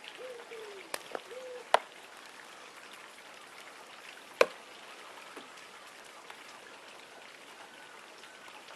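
A few sharp clicks and knocks of plastic pressure-washer parts being handled, two of them loud (one under two seconds in, one about four and a half seconds in), over a faint steady hiss.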